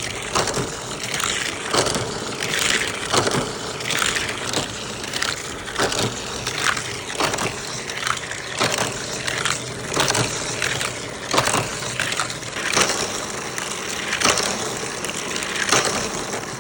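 Toy cars rolled and pushed along a plastic playset track: irregular plastic clicks, knocks and scraping, several times a second.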